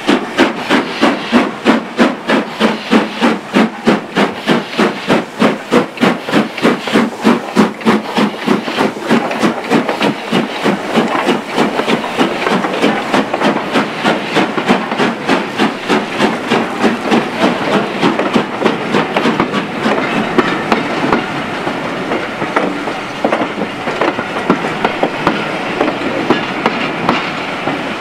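LMS Jubilee class steam locomotive 5690 Leander, a three-cylinder 4-6-0, chuffing with a train, its exhaust beating in a quick, even rhythm as it comes up and passes close by. From about halfway the beats give way to the coaches rolling past, their wheels clicking over the rail joints.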